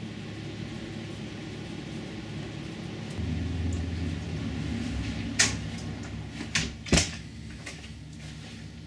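A door opened by its knob: three sharp clicks of the knob and latch in quick succession a little past the middle, the last the loudest, over a steady low room hum.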